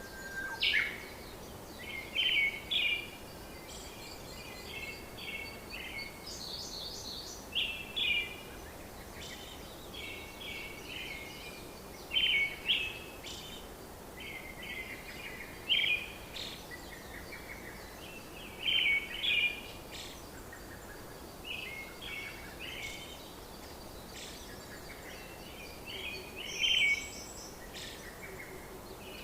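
Birds chirping: short clusters of high chirps repeating every second or two over a steady faint hiss of outdoor background.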